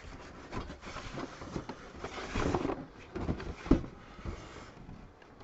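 Handling noise from the emptied cardboard set box and its contents: irregular rustling with scattered clicks and knocks, the sharpest knock a little over three and a half seconds in.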